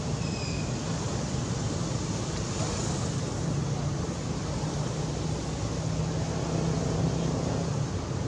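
Steady low rumble and hiss of outdoor background noise, with a brief faint high chirp about half a second in.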